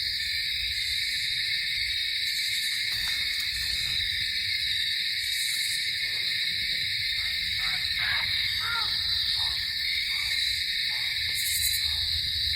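Night-time insect chorus: a steady, dense high buzz without a break, with a few faint short calls in the second half.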